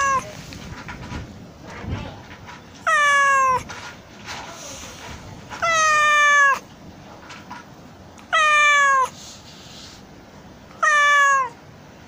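Young tabby kitten meowing from inside a concrete drain: four loud, drawn-out meows spaced about two and a half seconds apart, each dropping in pitch as it ends, with the tail of another right at the start. A local says this kitten cries like this whenever tourists pass, though it can get out on its own.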